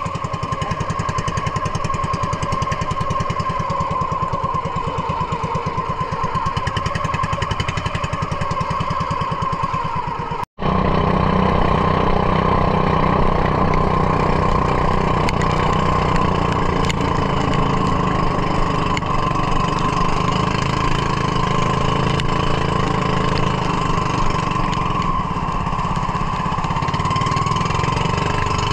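Small engine of a motorized outrigger fishing boat (bangka) running steadily under way, with water splashing along the hull. The sound cuts out for an instant about ten seconds in, then comes back a little louder.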